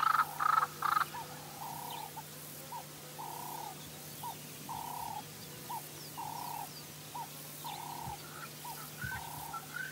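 Wild birds calling: a few louder short calls about two a second at the start, then a string of short repeated calls roughly once a second, with quick higher chirps from another bird near the end.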